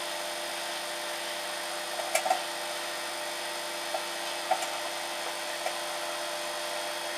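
Microwave oven running with a steady hum, an energy-saving light globe inside it. A few short sharp clicks break in about two seconds in and again around four, four and a half and nearly six seconds in.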